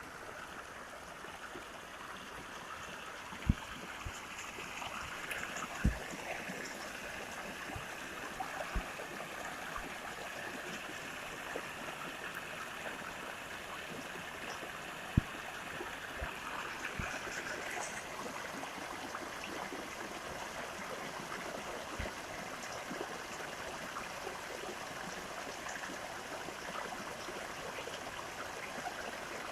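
Steady rush of flowing water, with a few sharp taps scattered through it.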